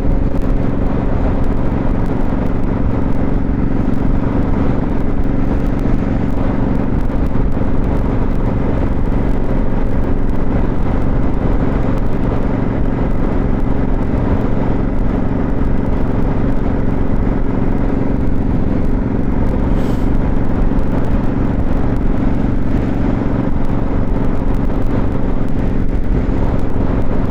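Motorcycle engine running at a steady cruising speed, with constant wind and road noise.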